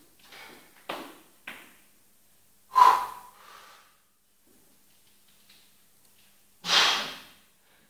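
Weightlifter's sharp breaths and hard exhales while squatting a 110 kg barbell: several short breaths, a loud one just under three seconds in, and the loudest, longest exhale near the end as he comes up out of the squat.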